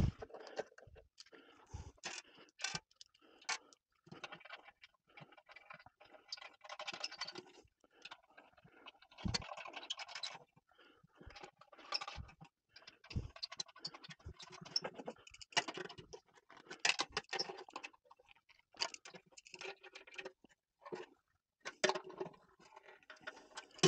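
Irregular scraping and clicking as hands and a hand tool work on an oil boiler's sheet-metal top, with short scrapes, some running about a second, and a few sharper knocks.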